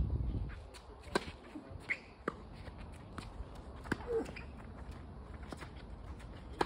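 Tennis balls being struck and bouncing, heard as a handful of sharp knocks at uneven spacing.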